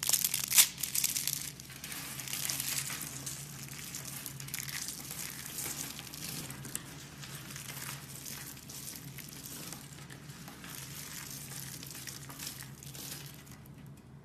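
Slime being squeezed and pressed by hand, giving a continuous crackling of many small pops and crinkles. It is loudest in the first second or so, then runs on steadily.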